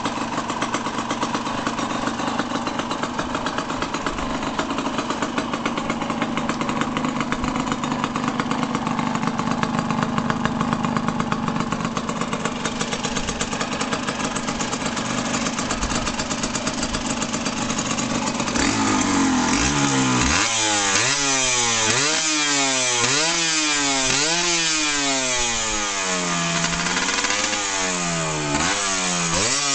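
Yamaha DT125's single-cylinder two-stroke engine, breathing through a DEP Tecno aftermarket exhaust, runs steadily at idle. About two-thirds of the way through it is revved in quick blips, about ten times, its pitch rising and falling with each.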